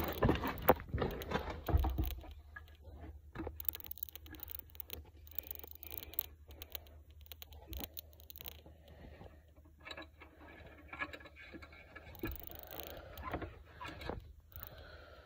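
Irregular scraping, clicking and tapping of hands and metal parts around a four-wheeler's engine while its oil is checked, louder in the first two seconds, then fainter and scattered.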